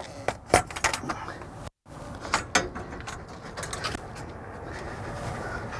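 Handling noise as a metal band clamp is worked off the rubber intake boot of an air filter housing: a scattering of short clicks, knocks and scrapes of metal against metal and rubber.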